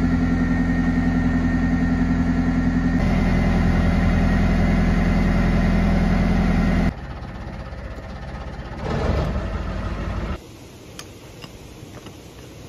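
Narrowboat's diesel engine running steadily while cruising, a loud, even low throb. About seven seconds in it drops to a much quieter background, with a few faint clicks near the end.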